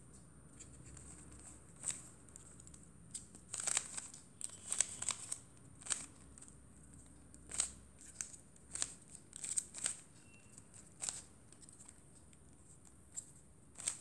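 Plastic 3x3 Rubik's cube layers being turned by hand: irregular quick clicks and clacks as the faces snap round. The turns come in bunches through most of the stretch, then pause before a last click near the end.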